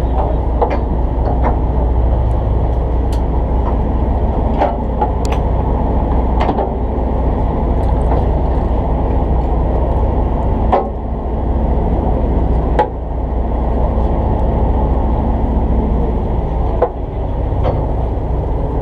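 A fishing boat's engine running steadily with a low drone, dotted with light clicks and knocks from fishing tackle being handled at the rail.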